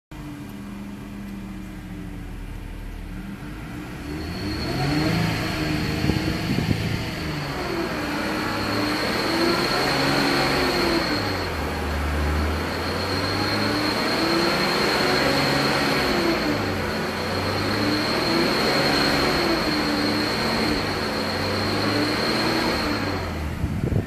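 Infiniti Q50 Red Sport 400's 3.0-litre twin-turbo V6 running in park and revved up and down repeatedly, with a steady high-pitched whine over it that the owner suspects is a failing turbo.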